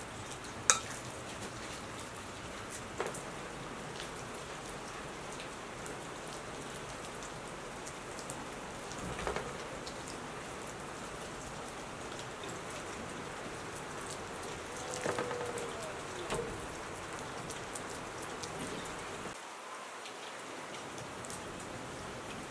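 Steady rain falling, an even patter of fine drops. A sharp clink comes about a second in, and a few softer knocks and scrapes follow from a spoon and kitchenware being handled.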